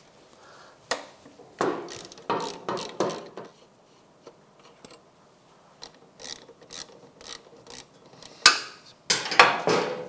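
Ratchet wrench clicking in short runs as the 12 mm rear brake caliper mounting bolts are loosened, with a couple of louder knocks near the end.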